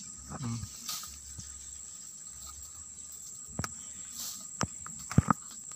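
Steady high-pitched insect drone, with scattered sharp clicks and snaps of brush and twigs in the undergrowth; the loudest is a pair of snaps about five seconds in.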